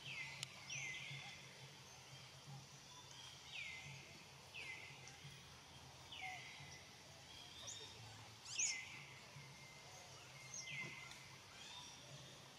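Faint, repeated high-pitched animal calls, each sliding quickly downward, coming every second or two over a low steady hum.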